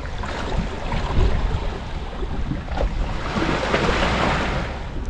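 Small sea waves washing and breaking over seaweed-covered rocks, with a louder wash of surf about three to four seconds in. Wind rumbles on the microphone throughout.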